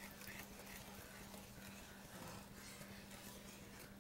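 Faint stirring of a wooden spoon through a bowl of liquid pie filling, with soft scrapes and clicks, over a steady low hum that fades about halfway through.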